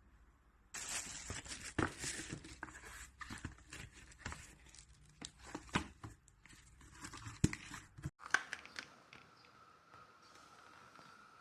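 Crinkling and rustling with many small sharp clicks, like something being handled, for about seven seconds. It stops abruptly, leaving a faint steady high hum.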